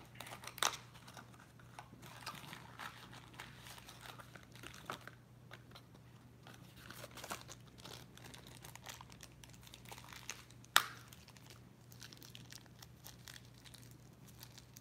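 Packaging crinkling and tearing as a small blind box and its wrapper are opened by hand, with scattered small clicks. One sharp click stands out about eleven seconds in.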